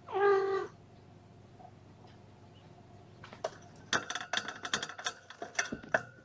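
A kitten gives one short meow. About three seconds later comes a rapid, uneven run of clicks and knocks as kittens scramble among their toys.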